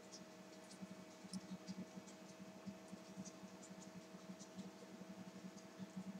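Faint handling of a small leather strap with a metal buckle: scattered soft ticks and light rubbing as the strap is turned and worked through its leather keepers. A steady low electrical hum runs underneath.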